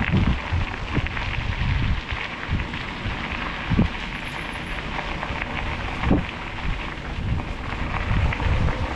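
Mountain bike riding along a dirt trail: steady rolling noise with wind buffeting the microphone, and sharp knocks about four and six seconds in as the bike hits bumps.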